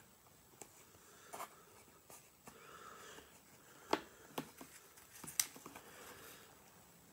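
Plastic deli-cup mantis container being handled: a few light taps and rustles of plastic, the sharpest about four seconds in and again a second and a half later.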